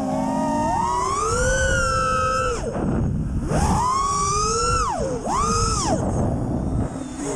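FPV quadcopter's brushless motors (T-Motor Blackbird V2 1950kv on 6S) whining in flight, the pitch swinging up and down with the throttle. It climbs and holds high, drops sharply about two and a half seconds in, shoots back up, then falls away twice more near the end.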